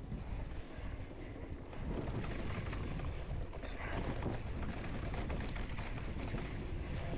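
Mountain bike rolling down a dirt singletrack: tyre noise over dirt and small rocks with a continuous clatter of the bike rattling, and wind rushing over the microphone.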